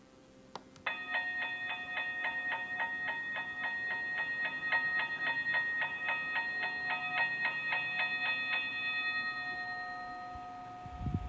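Toy railroad crossing gate's warning bell ringing in quick repeated strikes, about four a second, right after a click of its button. The ringing stops a little past halfway and the last tone fades out, with a short low thump near the end.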